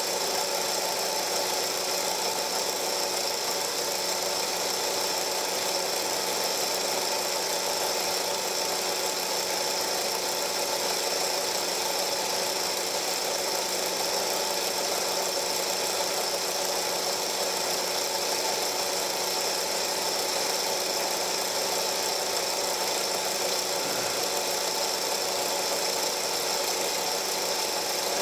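Film projector running: a steady mechanical whir with a constant hum and hiss, unchanging throughout.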